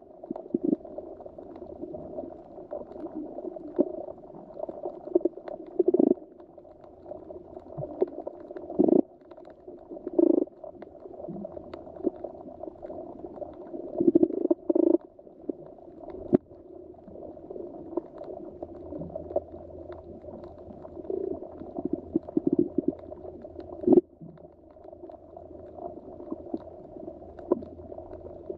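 Muffled underwater ambience: a steady dull wash of water with irregular gurgles and short pops every few seconds.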